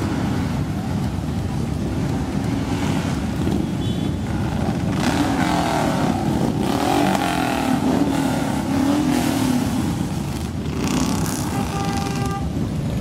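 A procession of cruiser and touring motorcycles riding past one after another, their engines running in a continuous mass of sound. The engines swell and their pitch slides up and down between about five and ten seconds in as bikes pass close. Near the end come a few brief steady tones.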